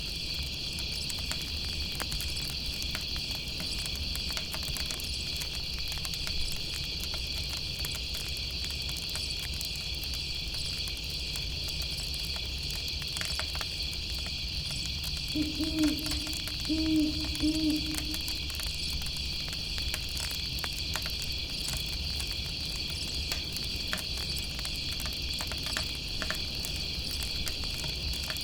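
Steady chorus of chirping insects, with faint crackles from a campfire, and an owl hooting three short low notes a little over halfway through.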